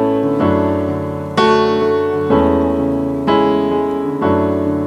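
Piano playing slow sustained chords, a new chord struck about once a second, with no singing.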